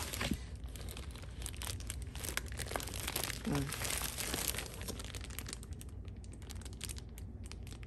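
Brown paper mailer bag and clear plastic wrap crinkling and rustling as a tumbler is pulled out of them, a dense run of small crackles that thins out in the second half.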